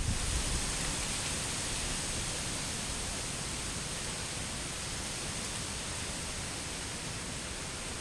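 Steady rushing noise of a waterfall, an even wash of sound with no breaks.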